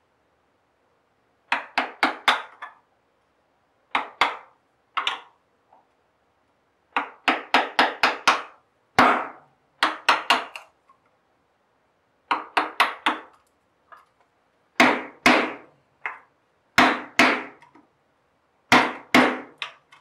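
A mallet striking a wooden-handled chisel, chopping the waste out between dovetails in a drawer board. The blows come in quick runs of two to six, with short pauses between runs.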